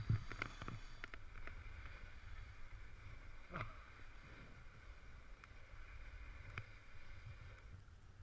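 Snowboard sliding over packed snow, heard as a faint, muffled rumble and hiss with a few light ticks, fading out near the end.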